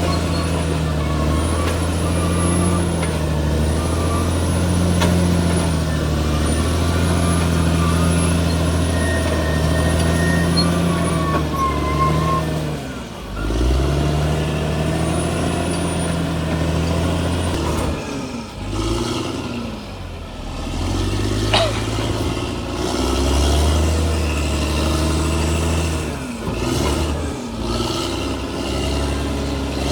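Crawler bulldozer's diesel engine running under load. Its note drops and picks back up briefly about halfway through, then several more times near the end. A faint high squeal recurs every couple of seconds in the first half.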